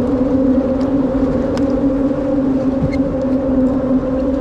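An engine running steadily at a constant pitch, a continuous drone, with a couple of faint clicks.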